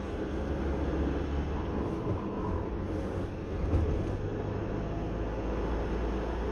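A car driving at road speed: steady engine and tyre noise with a low rumble.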